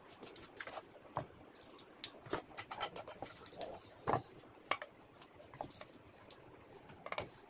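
Scattered light knocks, clicks and scrapes as a glass baking dish on a ceramic plate is handled and tilted. The loudest knock comes about four seconds in.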